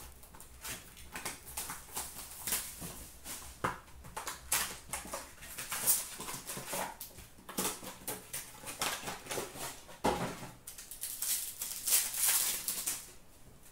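Unboxing a hockey card box: shrink wrap being cut and stripped, the cardboard box being opened, then a foil card pack torn open. The plastic crackles and the cardboard scrapes in irregular bursts, loudest near the end when the pack is torn.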